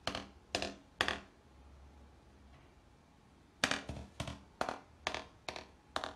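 Sharp slaps as a cat's paws bat at a person's hand: three slaps about half a second apart, a pause, then a quicker run of about eight, roughly two a second.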